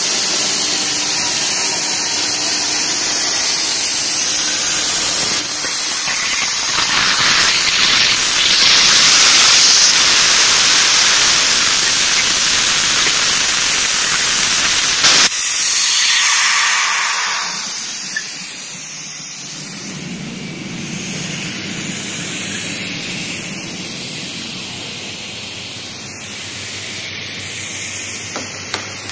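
CNC plasma cutter's torch cutting steel plate: a loud, steady hiss of the plasma arc and its air jet. About halfway through the hiss changes abruptly and carries on somewhat quieter.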